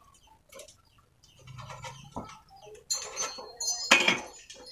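Thin sheet-metal gutter stock and a steel square being handled: quiet scraping at first, then a metallic rattle with a brief ring about three seconds in and a sharp knock about a second later.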